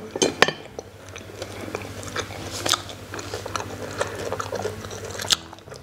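Close-miked biting and chewing of food, mostly a hand-made rice ball, with a few sharp clicks near the start as the wooden fork and spoon are set down in the bowl.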